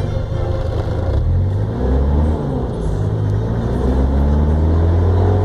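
Van engine accelerating while being driven, its pitch climbing, falling back about two and a half seconds in, then climbing again.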